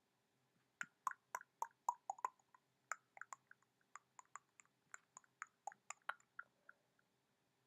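A quick, irregular run of light clicks, about four or five a second, lasting some six seconds, from someone working a computer.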